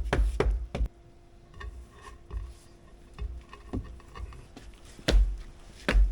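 A hand tool chops quickly into the ground, about three strikes a second, making cuts for a hole; the chopping stops about a second in. After it come a few scattered knocks and two heavy thumps near the end.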